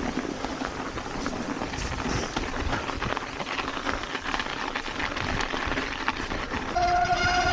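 Mountain bike rolling downhill: a steady rush of tyre and trail noise with frequent rattles and knocks, then near the end the brakes start a steady high-pitched squeal.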